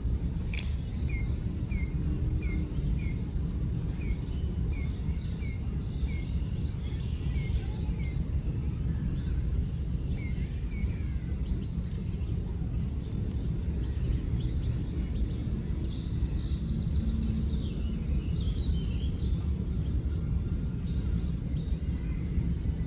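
A songbird repeats a short, high chirp about two to three times a second, then stops about eleven seconds in. Other birds call more sparsely after that. A steady low rumble of background noise runs underneath.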